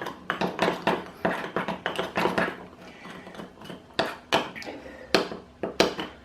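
A teaspoon stirring thick chocolate cake batter in a cup, clinking and tapping against the sides in quick irregular strokes that thin out to a few single taps in the second half.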